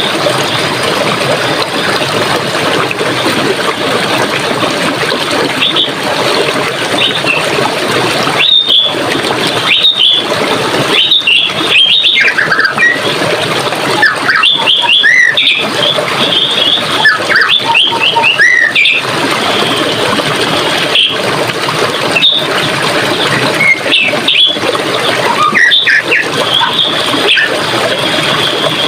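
Steady running water with songbirds chirping and whistling over it, the calls coming thickest through the middle stretch and more scattered near the end.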